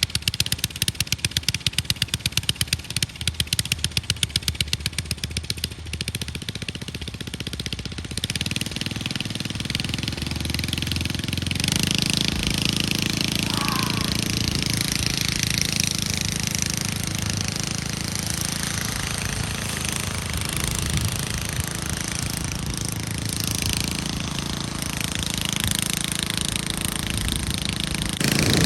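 A small motor-driven machine running steadily, with a fast, even rattle over the first several seconds before settling into a steady drone.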